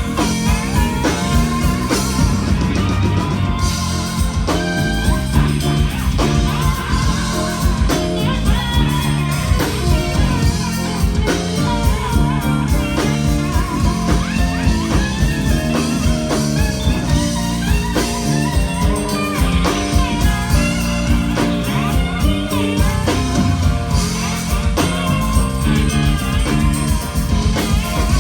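Live blues band playing an instrumental break: electric guitar lead with bent, wavering notes over bass and drums.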